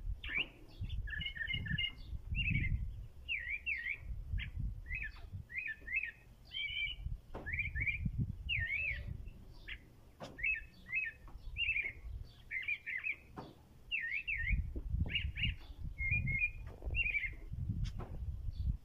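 White-throated thrush singing: a long run of short, varied whistled phrases, one after another with brief gaps, over a low rumbling background noise.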